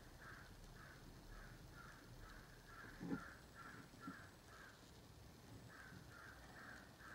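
Near silence, with a faint animal call repeating about two to three times a second throughout. Two soft knocks from the folding knife being handled, about three and four seconds in.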